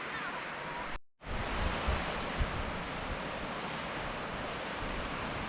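Waterfall and creek rushing, a steady roar of falling water, with low bumps of wind on the microphone. The sound drops out for a moment about a second in, then the water noise resumes.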